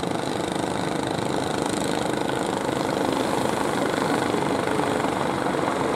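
Fishing boat engine running steadily, with a fast, even chugging.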